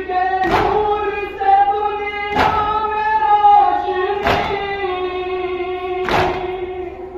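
A Shia nauha lament, sung with long held notes, over the group's unison chest-beating (matam): a sharp collective slap of hands on chests about every two seconds, four strikes in all.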